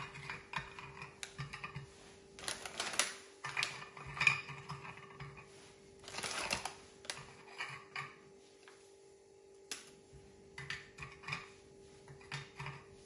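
Round biscuits being set down one at a time in a glass baking dish: scattered light clicks and taps on the glass, with two longer rustling spells, the first about two and a half seconds in and the second about six seconds in, over a faint steady hum.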